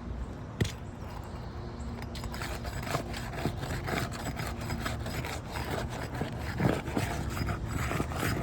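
Metal roofing snake tool scraping under asphalt 3-tab shingles, probing for a nail, with irregular rasping strokes and clicks and one sharp click about half a second in.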